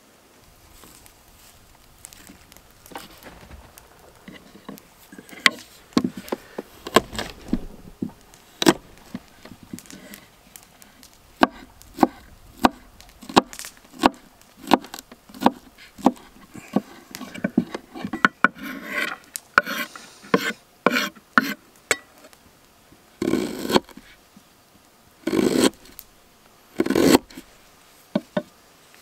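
Knife chopping vegetables on a wooden cutting board: a run of sharp knocks, about one or two a second, then three longer, rougher cuts near the end.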